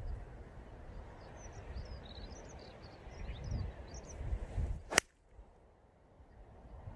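Golf tee shot: one sharp click of the club head striking the ball about five seconds in. Gusty wind buffets the microphone before the strike, with faint bird chirps.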